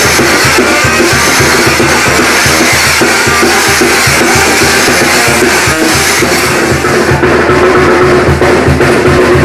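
Loud music with drums keeping a steady beat.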